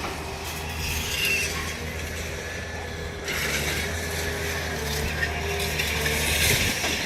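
Heavy demolition machine running with a steady low diesel hum. About three seconds in, a louder grating, scraping noise joins it.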